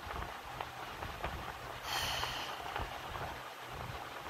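A man's breath, one short breathy exhale through the nose about two seconds in, over low room noise with faint clicks from the phone being held close.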